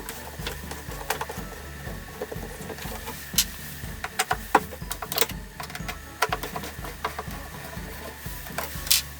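Small machine mechanism running with a steady low hum that pulses evenly, over many irregular sharp clicks and taps.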